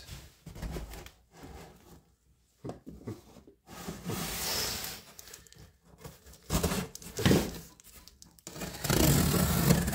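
A large cardboard box being shifted on a table and its packing tape slit open with a knife: irregular scrapes and rubs of cardboard, then a longer stretch of slicing and tearing through the tape near the end.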